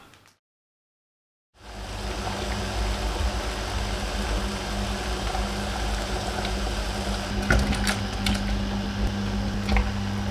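An electric kitchen appliance running with a steady whirring hum, cutting in about a second and a half in, with a few light clicks near the end.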